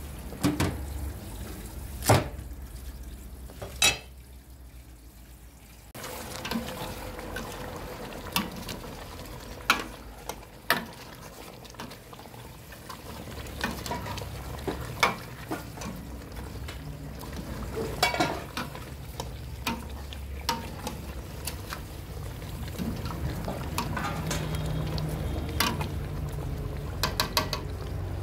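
A few sharp knocks of a cleaver on a wooden chopping board in the first few seconds, then a metal ladle stirring a thick chicken curry in a stainless steel pot: repeated clinks and scrapes of the ladle against the pot, with the wet slosh of the sauce.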